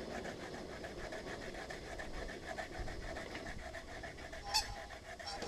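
A hand file being drawn back and forth in steady repeated strokes, rasping off shavings, with a brief metallic clink about four and a half seconds in.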